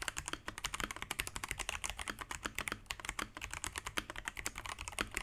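Typing on an Akko PC75B Plus mechanical keyboard with purple Akko Jelly tactile switches and PBT keycaps: a fast, uneven run of key clicks with no letup.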